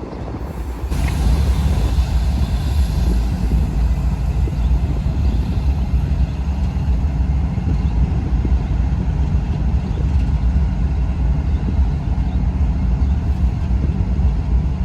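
Diesel freight locomotive running with a steady low rumble. It dips briefly at the start and grows louder about a second in.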